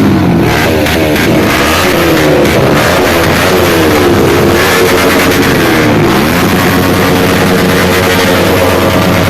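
Small sport motorcycle's exhaust as the engine is revved, its pitch rising and falling again and again.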